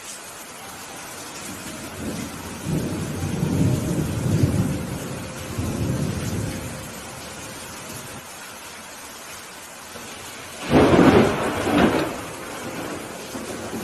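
Steady rain falling, with rolling thunder rumbling low from about two to seven seconds in, then a sudden, louder thunderclap crack about eleven seconds in that rumbles out over a second or so.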